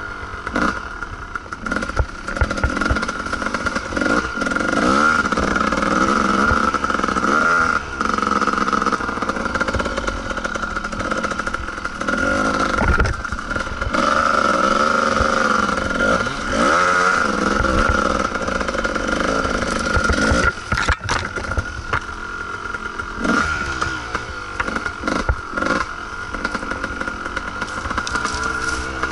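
Kawasaki KDX two-stroke dirt bike engine being ridden on a rough trail, revving up and dropping back again and again as the throttle is worked, with scattered knocks and rattles from the bike over bumps.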